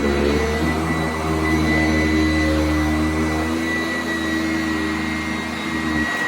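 Sanitaire S675 upright vacuum cleaner running steadily, a motor hum with a thin high whine over it. Its level and pitch sag a little near the end.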